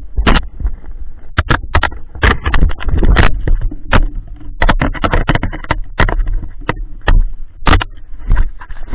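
Rapid, irregular sharp knocks and scrapes on a body-worn action camera as the rider tumbles in the snow, over a low rumble.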